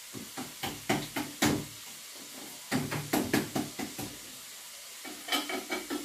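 A metal utensil scraping and clicking against a dish in three short clusters of strokes, as semolina dough for harcha is worked, over a faint steady hiss.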